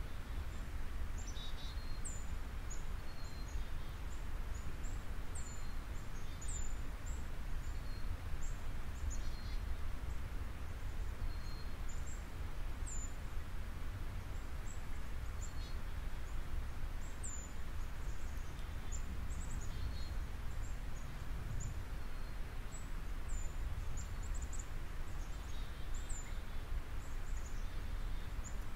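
Small birds chirping, short high chirps every second or two, over a steady low rumble of background noise.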